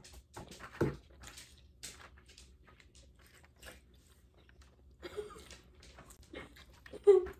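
Someone chewing food close to the microphone, mixed with small taps and clicks of paintbrushes and paint cups on a table. The loudest sounds come about a second in and again near the end.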